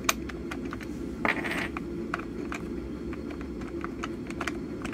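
Small irregular plastic clicks and ticks of a screw being turned out by hand from the back casing of a tub vacuum cleaner, with a brief scrape about a second and a half in, over a low steady hum.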